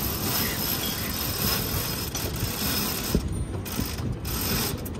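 Sail halyard being hauled by hand, the rope running through the mast's pulley blocks as the sail is hoisted, with a steady rasping.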